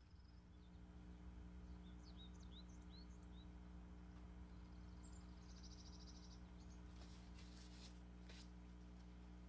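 Near silence: a faint steady low hum, with a few faint short chirps in the first few seconds and a faint rapid trill in the middle.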